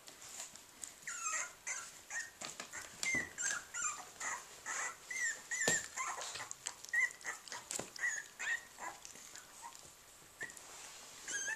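Three-week-old puppies squeaking and whimpering in many short high calls, with scuffling and crinkling of newspaper underfoot.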